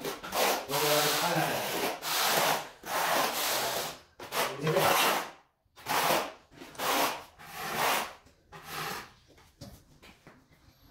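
Steel notched trowel scraping through tile adhesive on a concrete floor, combing out the adhesive bed in a run of strokes about one a second, which thin out and fade near the end.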